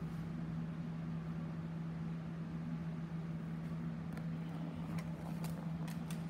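A steady low mechanical hum holding one pitch, with a few light clicks and knocks in the second half as the phone camera is handled.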